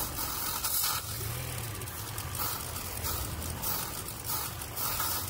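2013 Hyundai Elantra engine idling while aerosol top-engine cleaner is sprayed into the open throttle body in a series of short hissing bursts, kept small so the engine doesn't stall.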